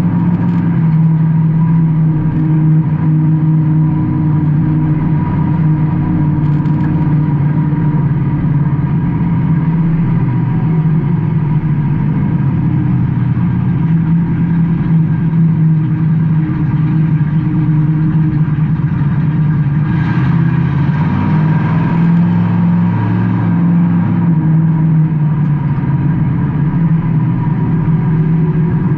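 Race car engine heard from inside the car, running hard with its pitch rising and falling as it speeds up and eases off.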